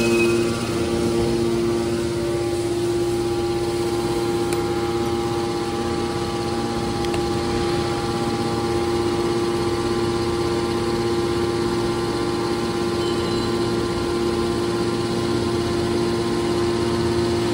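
Electric motors of a hydraulic metal baler's power unit running steadily: a constant machine hum with several held tones.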